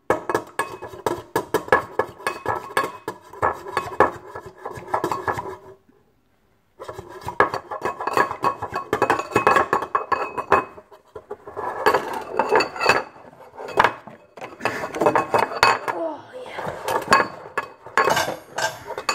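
Knife beating eggs in a ceramic bowl: fast, irregular clinking and knocking of the blade against the bowl, with a short break about six seconds in.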